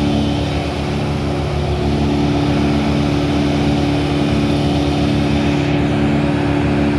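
Engine of a homemade tree-grinding machine running steadily, a constant loud drone with a fast even pulse.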